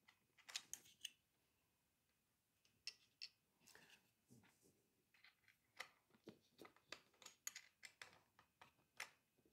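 Faint, scattered small clicks and taps of fingers handling parts at the back of a motorcycle instrument cluster.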